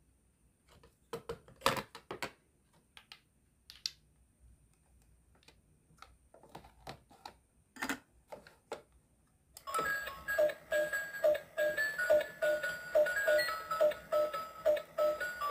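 Plastic clicks and knocks as a toy microwave's door is opened and shut with a toy strawberry put inside, then, about ten seconds in, the toy microwave starts running with a steady repeating electronic beeping tune.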